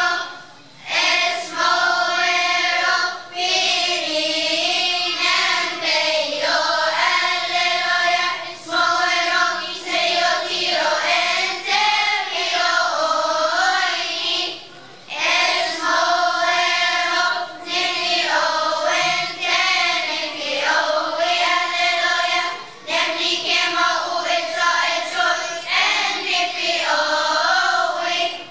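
Children's choir of girls and boys singing together, with short breaths between phrases.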